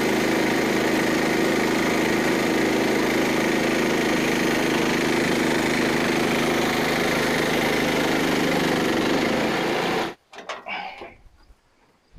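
Engine running steadily at an even speed, then cutting off abruptly about ten seconds in, leaving a few faint sounds.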